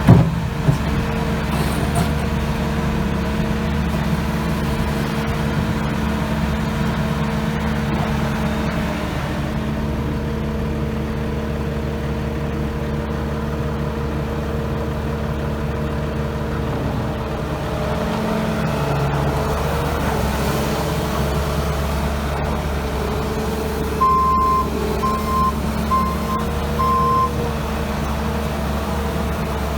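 Bobcat S650 skid steer's diesel engine running steadily. There is a sharp knock right at the start, and a short run of high beeps about four-fifths of the way through.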